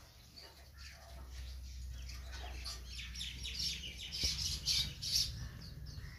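Birds chirping: many quick, high chirps that come thickest and loudest in the second half, over a low steady hum.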